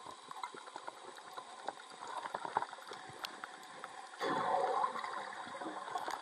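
Underwater sound: faint scattered clicks and crackles, then about four seconds in a louder, steady gurgling rush of air bubbles released by a diver.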